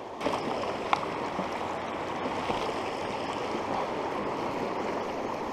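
River water rushing steadily over a rocky riffle, with a brief click about a second in.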